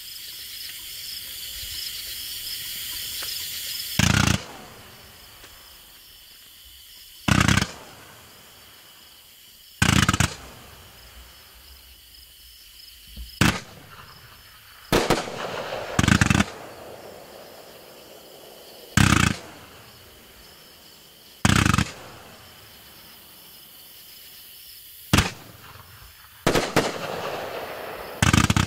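A 500-gram aerial repeater cake with strobe effects firing. A rising hiss, the fuse burning, runs for about four seconds, then single shots go off one at a time every two to three seconds, about eleven in all.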